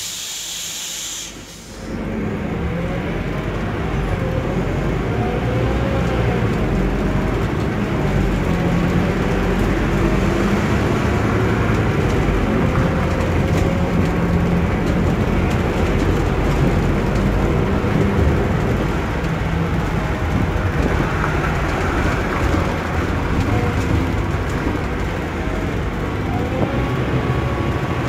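Scania K280UB city bus with a compressed-natural-gas engine, heard from inside the passenger cabin while under way: a steady engine and road rumble with a pitched drive note that rises and falls. There is a brief dip in level about a second in.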